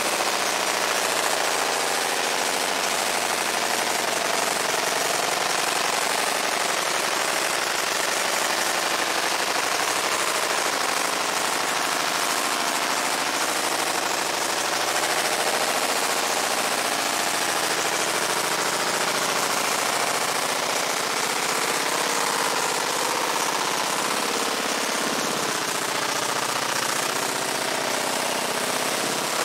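Fiber laser engraving the steel head of a sledgehammer: a steady, dense crackling hiss of the pulsed beam marking the metal, without pause.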